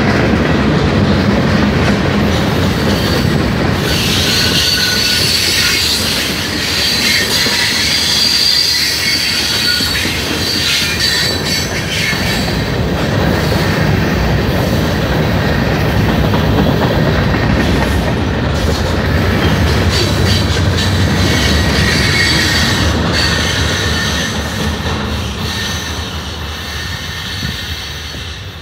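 Freight cars of a mixed manifest train rolling past close by: a steady rumble and clatter of steel wheels on rail, with high wheel squeal coming and going. The sound fades over the last few seconds as the end of the train moves away.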